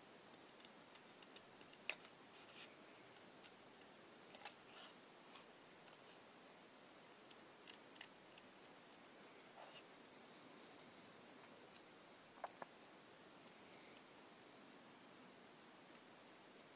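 Small scissors snipping paper in many short, quiet snips while cutting around a curved petal outline. The snips come thick in the first half and grow sparser later.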